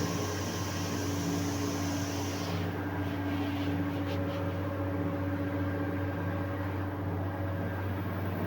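Electric machinery running steadily with a deep, even hum, and a high hiss over it that stops about two and a half seconds in.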